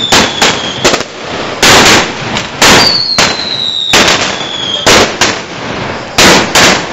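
Firecrackers (petardos) going off in a rapid, irregular string of about a dozen sharp, loud bangs. A high whistle falls slowly in pitch for over a second in the middle of the string.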